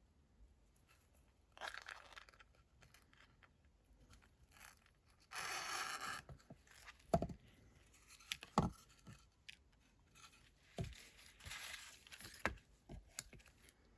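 Ribbon being threaded through a hanging ornament by hand: brief rustling and scraping, with a few sharp knocks on the work surface.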